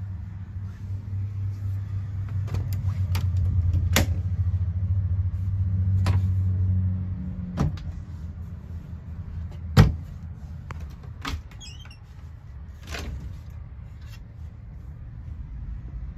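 Oak cabinet doors and their catches being opened and shut: a string of sharp clicks and knocks, the loudest about ten seconds in. Under them is a low steady hum that is strong at first and drops away about seven seconds in.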